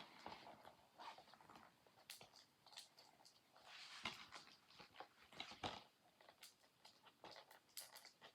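Plastic shrink-wrap being peeled and crinkled off a DVD case: a faint string of irregular crackles and rustles, with a couple of louder scratches in the middle.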